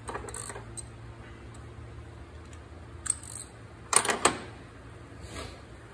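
Metal clinks and rattles of hand tools being handled: a few short clicks near the start, a couple more about three seconds in, and the loudest clatter about four seconds in.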